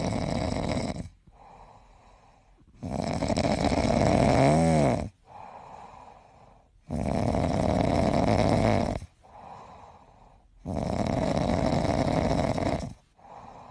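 A sleeping cat snoring: four loud, rasping snores about every four seconds, each lasting about two seconds, with quieter breaths between. The second snore carries a brief whistle that rises and falls.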